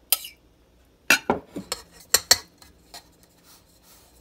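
A metal spoon clinking and scraping against a glass bowl and a round metal baking pan as tomato sauce is spooned onto pizza dough and spread. One sharp clink just after the start, a quick cluster about a second in, two more a little after two seconds, then soft scraping.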